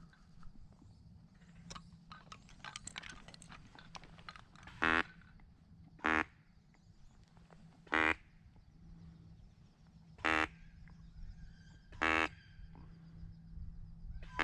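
Single loud, buzzy duck quacks of the hen-mallard kind, six of them, evenly spaced about two seconds apart, with a few faint clicks in between.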